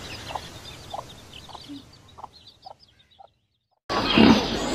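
Hen clucking in short, evenly spaced notes about twice a second, with faint high chirping above them, trailing off about three seconds in. Near the end a wild boar's much louder grunting starts abruptly.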